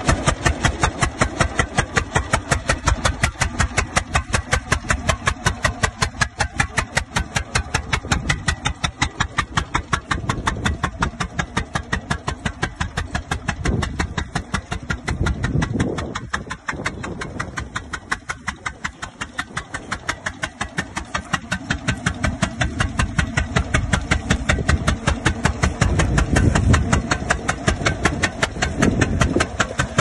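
The horizontal two-cylinder engine of an International Harvester Titan 10-20 vintage tractor runs under load as it pulls a plough, making a steady, even rhythm of exhaust beats.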